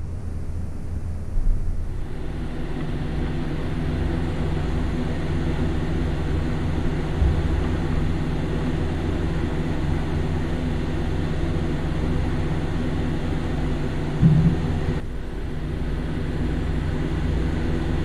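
Steady low mechanical hum with a light hiss over it, and a short louder tone about fourteen seconds in.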